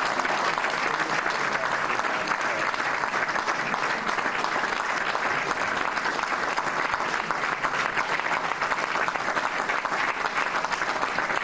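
An audience applauding steadily with dense, sustained clapping.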